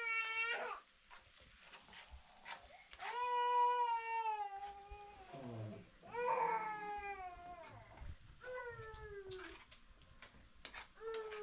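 A cat meowing repeatedly: about five long, drawn-out meows, several sliding down in pitch at the end. Light clicks of a spoon against a frying pan come between them.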